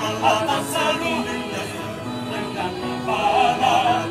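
Mixed choir of women and men singing together, several voices holding and moving between notes.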